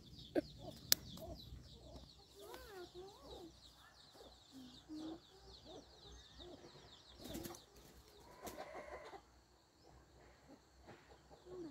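Chickens clucking quietly in short scattered calls. A rapid high-pitched chirping runs through the first few seconds, and there are a couple of sharp clicks near the start.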